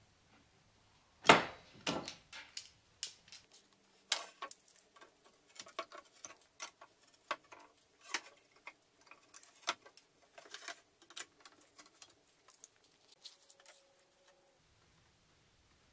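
Hand tools handled on a wooden board: one sharp knock about a second in, then a long string of small irregular clicks and taps.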